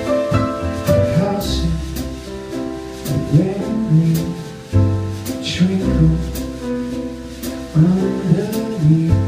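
Live piano trio playing: a grand piano with upright bass and a drum kit, with cymbal crashes about a second and a half in and again near the middle.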